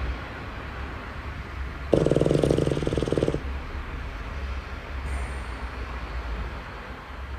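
Boston Terrier puppy snoring in sleep: one loud, rattling snore about two seconds in, lasting about a second and a half, then a faint breath about five seconds in.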